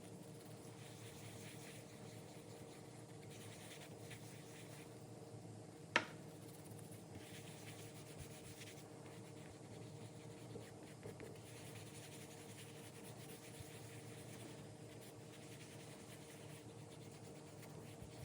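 Faint rubbing on a leather wallet in repeated strokes of a second or two each, with one sharp click about six seconds in, over a steady low hum.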